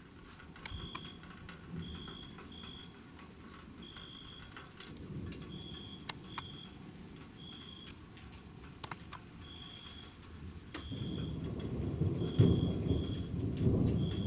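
Thunder rumbling in the last few seconds, building and loudest a little after twelve seconds in, under a thunderstorm with scattered drips and clicks. Throughout, a short high-pitched chirp repeats irregularly, about once a second.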